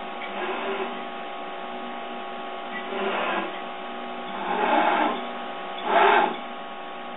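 CNC milling machine's axis drive motors moving the table in four short jogs, the last two loudest, over a steady electrical hum from the machine.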